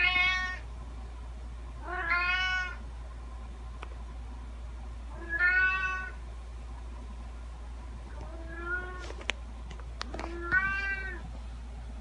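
A domestic cat meowing five times, one meow every two to three seconds, each rising and then falling in pitch. A few faint clicks come between the fourth and fifth meows, over a steady low hum.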